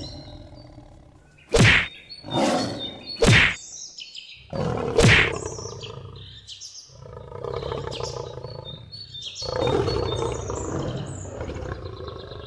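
Cartoon fight sound effects: four sharp hits in the first five seconds, then long animal roars and growls. Bird chirps run in the background.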